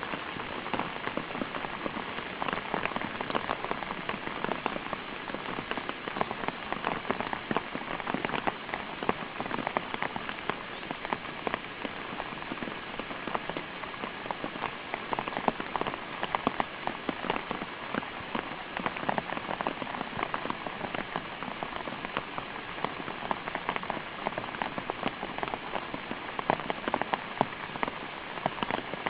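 Steady rain falling on a surface: a dense, even hiss made of many small drop impacts.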